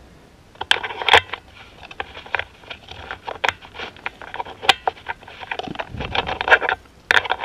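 Hands working the plastic choke lever housing and pin on a Mikuni snowmobile carburetor: an irregular run of sharp clicks, taps and short scrapes that starts about half a second in.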